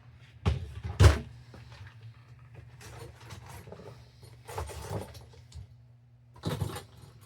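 Clunks and knocks of parts and fittings being handled and pulled out by hand, the loudest about a second in and more at about five and six and a half seconds, over a steady low hum.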